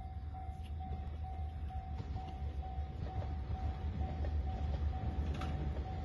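Japanese level-crossing warning bell ringing steadily, about two rings a second, signalling an approaching train, over a low rumble that grows louder toward the end.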